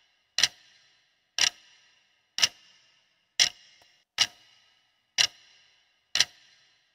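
Countdown clock ticking sound effect for a quiz timer: seven sharp ticks, one a second, each with a short bright ring.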